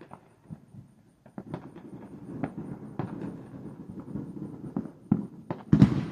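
Fireworks and firecrackers going off: scattered pops that thicken into a rapid run of crackles about a second and a half in, with one louder bang near the end.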